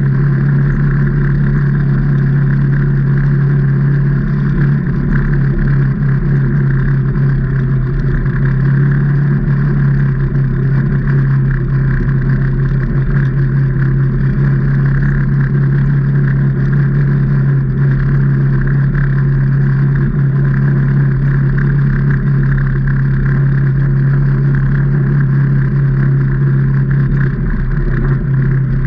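A 2019 Can-Am Maverick Trail 800's Rotax V-twin engine running under way at a steady pitch and loudness as the side-by-side drives along a trail.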